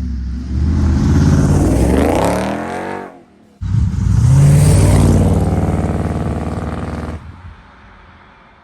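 A car engine revved hard twice, each rev climbing in pitch and then falling away; the second rev cuts off abruptly about seven seconds in, leaving a faint hiss.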